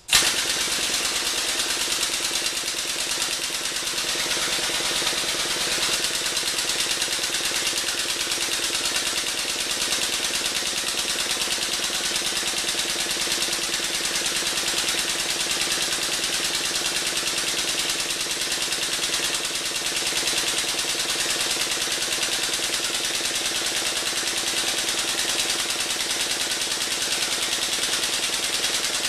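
Air-over-hydraulic pump of a Harbor Freight 8-ton ram cutting in abruptly and then running steadily, a fast rattling buzz with strong air hiss. It is driving the ram under load as it bends 1.5-inch DOM steel tube on a manual tubing bender converted to air-over-hydraulic.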